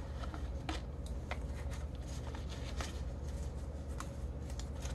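Faint rustling with a few small sharp clicks as a disposable face mask is handled and put on, over a steady low hum.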